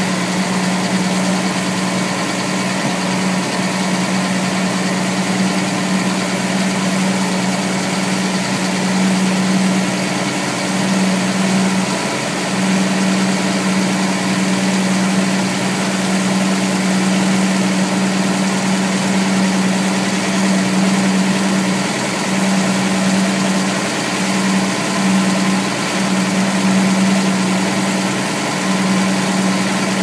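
Massey Ferguson 1200 tractor's six-cylinder diesel engine running at a steady working speed while pulling a trailed field sprayer, heard from inside the cab. It makes a constant drone with a strong low hum that dips briefly a few times.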